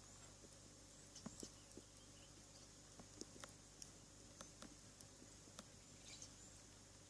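Faint campfire crackling: irregular sharp pops and snaps, a few each second, over a low steady background.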